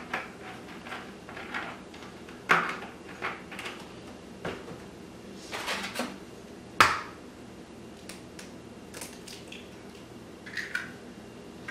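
Kitchen clatter: a few scattered knocks and clinks of bowls and utensils, with one sharp knock about seven seconds in.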